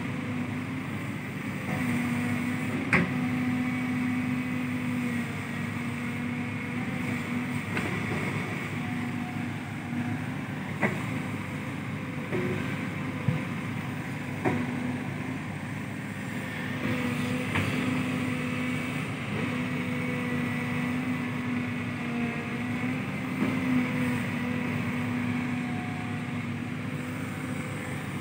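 Cat 313D2 GC excavator's diesel engine and hydraulics working under load as it digs and loads soil into a dump truck: a steady drone that swells in two long stretches, with a few sharp knocks.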